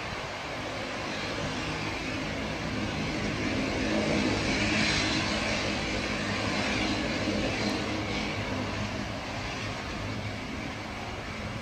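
Bombardier Dash 8-300's twin Pratt & Whitney Canada PW123 turboprop engines running as the aircraft passes on the ground: a steady propeller hum with turbine hiss, swelling to a peak about halfway through and then fading as it moves away.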